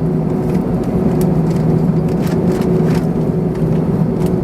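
Cabin noise inside an Airbus A321ceo on the ground before takeoff: the engines running with a steady low hum and air noise, with a few faint knocks.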